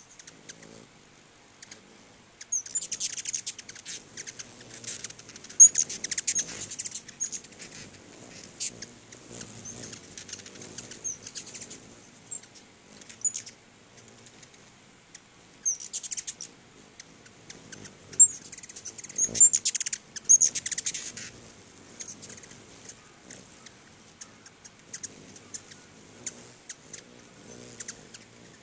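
Ruby-throated hummingbirds chipping and twittering in quick, very high-pitched bursts as they jostle at the feeders. The busiest chatter comes about three to seven seconds in and again around twenty seconds in.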